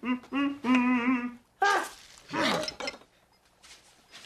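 A man humming a wavering, sing-song tune in short phrases, followed about two seconds in by a couple of short falling vocal glides.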